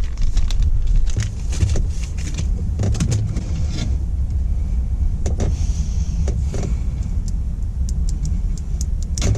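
Radio wiring and a plastic antenna adapter being handled and pulled out from behind the dash, with scattered clicks and knocks over a steady low rumble.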